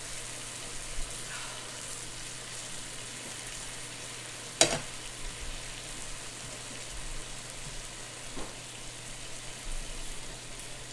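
Food sizzling steadily on the hot grill plate of an electric hot pot and grill. A single sharp clink, a utensil knocking, stands out about halfway through.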